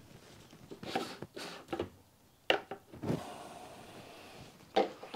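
A handful of light knocks and clicks, spaced irregularly, as parts and tools are handled at a motorcycle on the workbench.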